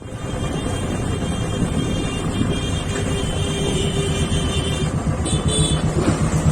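Motorcycle engine running amid city road traffic, a steady low rumble with road noise and faint tones in the background.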